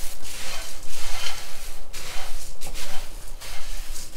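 Puffed rice being stirred and tossed with a spatula in a nonstick frying pan: a dry rustling and scraping of the grains against the pan, coming in irregular strokes as it roasts to make it extra crunchy.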